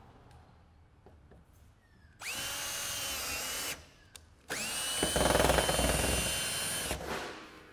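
Cordless drill driving screws through corrugated steel roofing sheet, run twice. Each run starts with a short rising whine that then holds steady. The first comes about two seconds in, and the second is longer and louder, with a low rumble in its middle.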